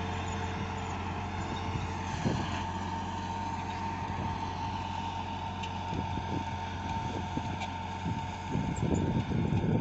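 An engine running steadily at one constant speed, with a few short knocks and clatters, thickest near the end.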